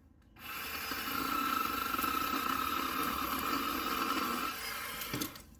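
Craftsman 10-inch 20-volt cordless chainsaw running steadily, with a motor whine and chain noise, as it cuts through a small tree trunk. It starts about half a second in and stops about five seconds in.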